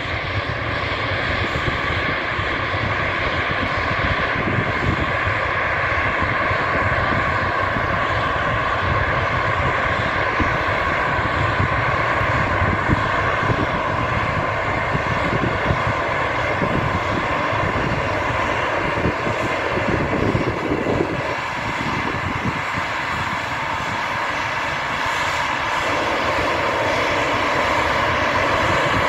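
Airbus A340-200's four CFM56 turbofan engines running at taxi power as the airliner rolls past: a steady jet whine over a low rumble.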